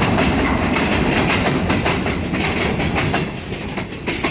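A train passing close by: loud, continuous rumble with wheels clattering and clicking over the rails.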